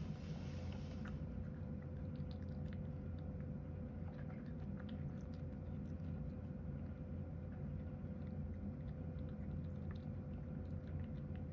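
A cat eating from a ceramic bowl, chewing chopped carrot mixed with bonito flakes, with many small, soft clicks of its teeth and the food. A steady low hum and a faint steady tone run underneath.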